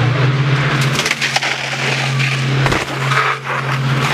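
A motor vehicle's engine running with a steady drone, with a few sharp knocks and crackles about a second in and again near three seconds.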